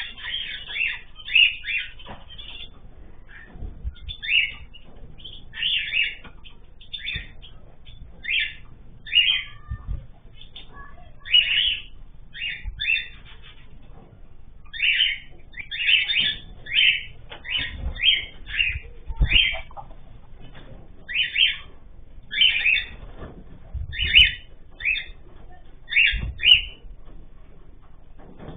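Pet cage birds calling: many short, loud chirps and squawks, repeated irregularly throughout, with a few soft low thumps in between.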